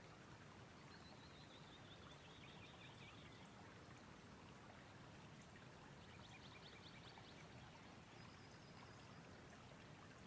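Faint outdoor ambience: a low steady rush with a few faint bird calls, a descending trill about a second in and a quick rapid trill around six seconds in.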